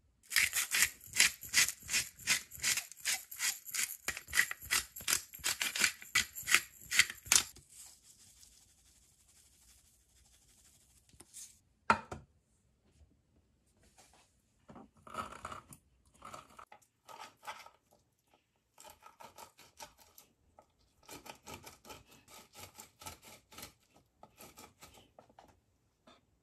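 Fast rhythmic scraping strokes, about four a second, for about seven seconds. Then a single sharp click about twelve seconds in, and shorter, broken runs of scraping.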